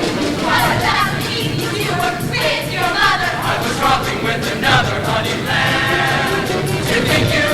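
Show choir singing in harmony over instrumental accompaniment with a steady beat.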